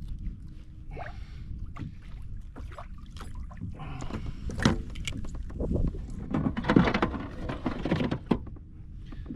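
Wind rumble on the microphone and water slapping at a kayak. From about halfway in there is a run of knocks and plastic clatter as a caught bass and a plastic fish-measuring board are handled in the kayak, ending in a sharp click.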